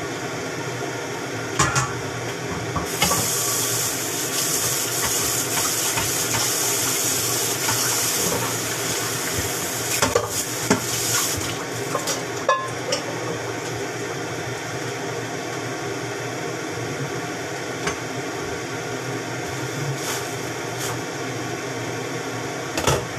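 Tap water running for about eight seconds, filling a stainless steel kettle, then a few clinks of metal pots and lids over a steady hum.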